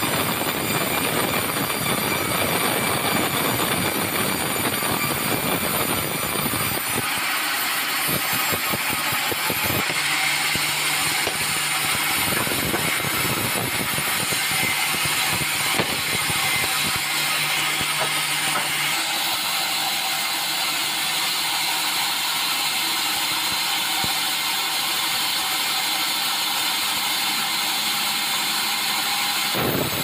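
Band sawmill running, its blade ripping lengthwise through a meranti log: loud, steady machine noise with a high whine. About seven seconds in the deep low part of the sound falls away, leaving a thinner, higher cutting noise.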